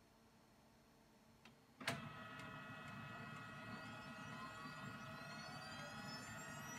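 HP LaserJet laser printer starting up for a print job: a sharp click about two seconds in, then its motors and fans start running, with a whine that rises steadily in pitch.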